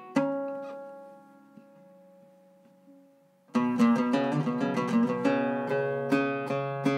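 Iraqi-style Zeryab oud with a cedar soundboard and Pyramid strings, played with a plectrum: one plucked stroke rings and slowly fades for about three seconds, then a quick run of plucked notes begins about halfway through and carries on.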